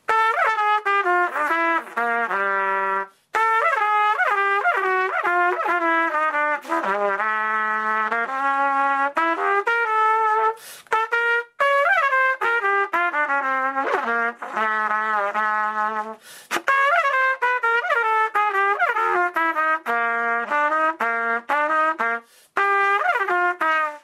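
Unaccompanied trumpet playing jazz-style phrases packed with flips: quick lip slurs up over the top of a note and back down into the next note. The phrases are broken by a few short breaths.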